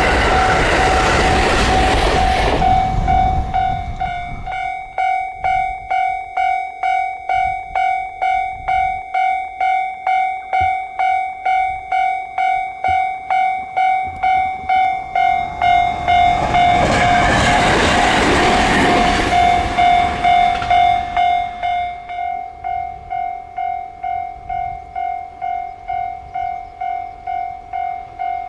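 Japanese level-crossing warning bell ringing, a steady electronic ding repeating about twice a second. A train passes at the start, drowning the bell, and another passes about midway through.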